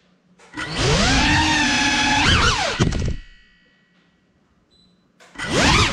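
GEPRC Cinelog 35 cinewhoop drone's brushless motors whining, the pitch swinging up and down with the throttle. The whine cuts out about three seconds in, leaving near silence for about two seconds, then spins back up with a sharp rising whine near the end.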